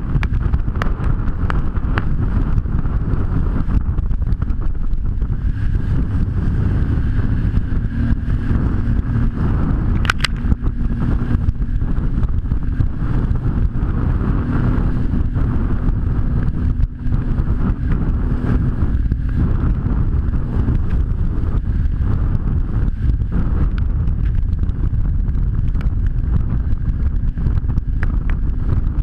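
Jet ski under way: heavy wind buffeting on the microphone over the steady hum of the watercraft's engine, which comes through faintly as a steady tone for a while in the middle.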